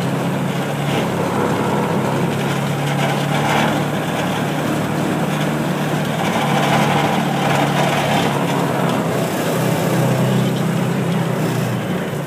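Small engine of a ride-on farm vehicle running steadily while it drives, a constant low hum with rattle and road noise over it.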